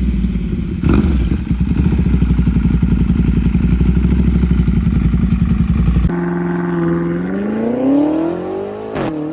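Ducati Panigale V2's V-twin engine through a full titanium Vandemon exhaust, running with a fast, even pulsing beat. About six seconds in the sound changes abruptly to a cleaner engine note that rises in pitch, peaks and falls away as the engine revs.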